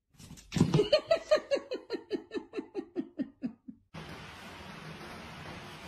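A person laughing: a run of about fifteen quick 'ha's that fall in pitch and slow down, fading out after about three seconds. Then a steady faint background hiss.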